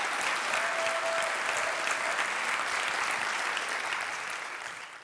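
Audience applauding at the end of a talk: a dense patter of many hands clapping, fading out near the end.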